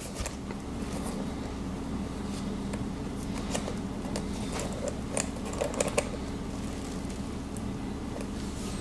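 Steady low mechanical hum in a small room, with a scatter of light clicks and rustles from handling a bag's zipper and its broken puller, mostly in the middle stretch.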